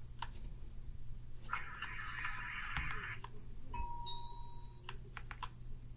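Scattered single key presses on a Motospeed CK104 mechanical keyboard with red (linear) switches, heard as separate short clicks. A steady electronic beep starts a little under four seconds in and lasts about a second, and a stretch of hiss comes around two seconds in.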